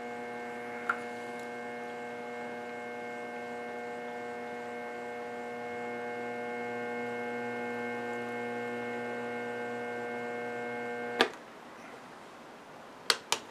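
Milling machine spindle motor running with a steady hum while it power-taps a quarter-20 thread into an aluminium tube. It switches off with a click about eleven seconds in, and two sharp clicks follow near the end.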